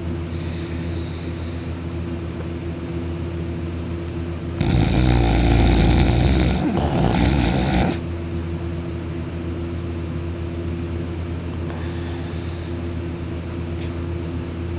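Man sleeping on his back with his mouth open, snoring very loudly: one long, loud snore of about three seconds in the middle and the next one starting at the very end, with a quieter steady drone between them.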